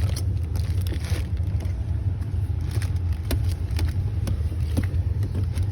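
Steady low rumble of a car heard from inside the cabin, with scattered light clicks and knocks.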